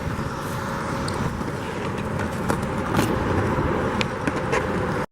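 Wind buffeting the microphone with a steady low rumble, with scattered sharp clicks and knocks on top.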